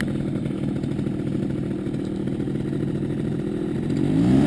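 Paramotor trike engine idling steadily, then revving up near the end, pitch rising and getting louder, as the throttle opens to pull the wing up for take-off.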